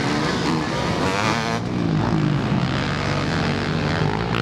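Motocross bike engines revving hard, their pitch rising and falling repeatedly with throttle and gear changes.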